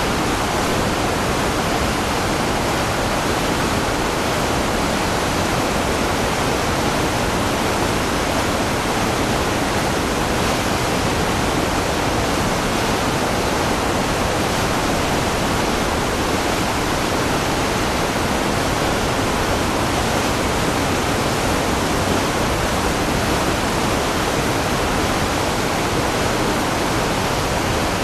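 Waterfall: a steady, unbroken rush of falling water, even in level with no distinct splashes or changes.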